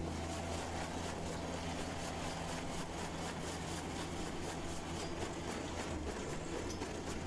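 An engine running steadily with a low, even hum, which shifts slightly near the end.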